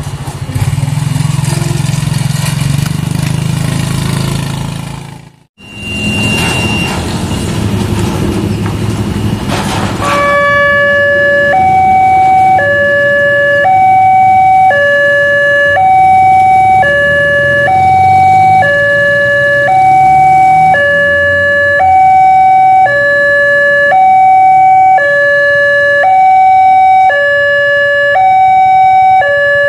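Railway level-crossing warning alarm sounding a loud electronic two-tone signal, switching between a lower and a higher tone about once a second; it starts about a third of the way in, signalling an approaching train as the crossing barriers close. Before it, vehicle engines run in the road traffic.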